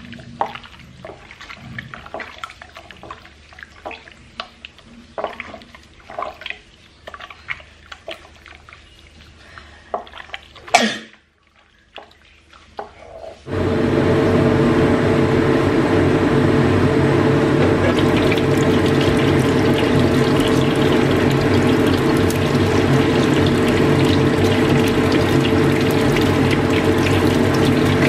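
Hands squishing and rubbing marinade into raw chicken pieces in a glass bowl: soft, scattered wet squelches and clicks. About thirteen seconds in this gives way to a loud, steady rushing noise with a constant hum that holds unchanged as oil is poured into the pan and the chicken goes in.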